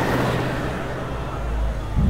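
Car engine running as a sedan drives slowly along a street, with a low rumble that grows near the end.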